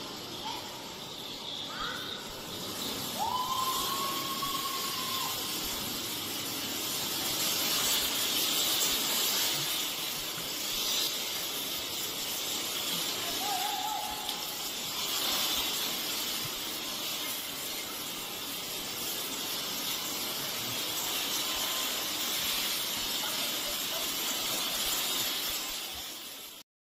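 A surge of muddy water rushing across the ground, a steady loud rush that swells and ebbs, with a person's long call about three seconds in and a shorter one about halfway through.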